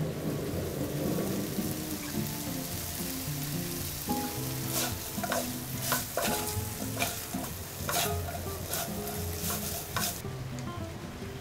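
Dried anchovies in a sticky chili-paste sauce sizzling in a frying pan while two wooden spatulas stir them, with a run of sharp scrapes and knocks against the pan from about four seconds in. The sizzle drops away near the end.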